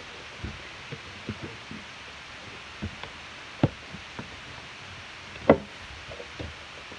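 Homemade cloud slime being kneaded and pressed by hand: scattered sticky clicks and pops, with two louder sharp pops about halfway through and again two seconds later.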